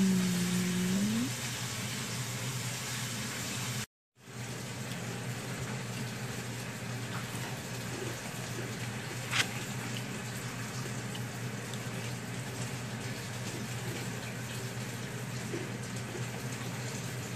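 Knife slicing through a no-bake chocolate pie's crumbly biscuit base under a set chocolate layer: a steady hiss of crumbling with a few faint crackles and one sharp click about nine seconds in. A short falling note of music is heard at the very start.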